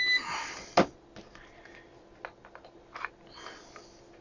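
A short, high electronic beep from the bench test gear, then a sharp click just under a second in and a few fainter clicks as the instruments are handled.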